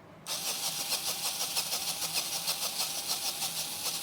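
Cordless drill-driver motor starting about a quarter second in and running steadily with a whine and a pulsing whir as it drives out a screw.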